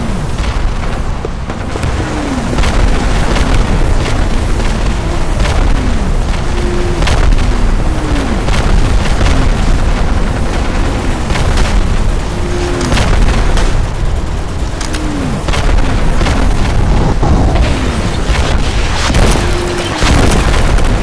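Mixed World War I battlefield sound effects: a continuous artillery barrage rumbling with explosions, sharp gunshots cracking throughout, and incoming shells whistling down in pitch again and again.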